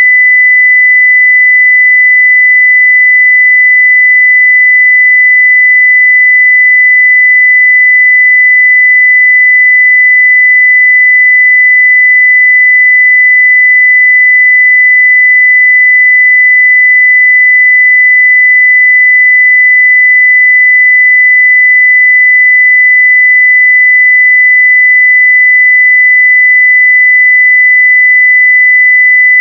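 A continuous 2 kHz sine-wave test tone at full-scale level, steady and unchanging.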